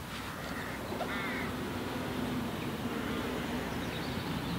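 A steady low buzzing hum, with a short chirp about a second in.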